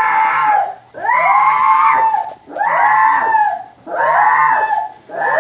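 Young children screaming and wailing over and over: a string of loud, high-pitched cries, each about a second long and rising then falling in pitch, broken by short gaps for breath.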